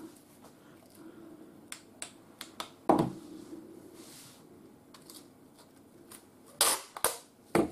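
Handling noise on a workbench: a few light clicks, a sharp thump about three seconds in, then two louder clicks with a brief scrape near the end.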